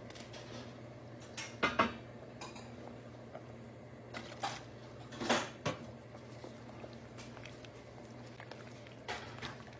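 Wooden spoon stirring soup in a cooking pot, knocking against the pot in small clusters of two or three about four times, over a steady low hum.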